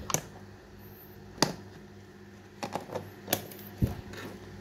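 Thin clear plastic container lid clicking and snapping as it is pried loose from its rim, a series of sharp clicks bunched together in the second half.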